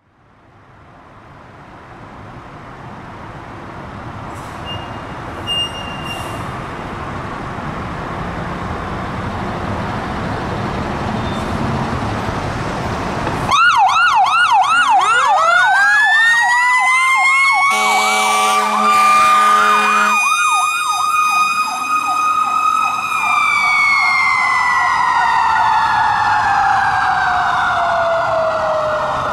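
A fire engine's diesel engine runs for the first dozen seconds, its noise growing louder. Then the sirens start: a fast electronic yelp, and a Federal Q2B mechanical siren winding up into a high scream. An air-horn blast lasts about two seconds midway, and then the Q siren holds and slowly winds down, its pitch falling.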